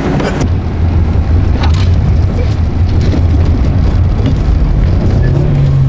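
A car engine running under way at a steady pitch, rising near the end.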